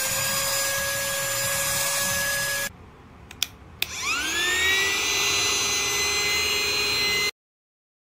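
Handheld rechargeable mini vacuum cleaner's motor running with a steady whine, which cuts off about two and a half seconds in. After two clicks it spins up again with a rising whine, runs steadily at a slightly different pitch, and stops suddenly near the end.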